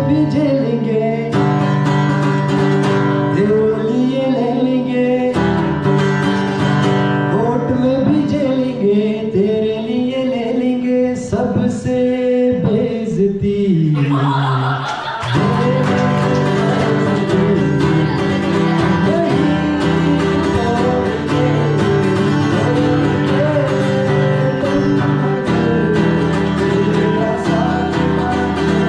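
Background music: a song with a singing voice over guitar accompaniment. About halfway through, the arrangement changes and becomes fuller.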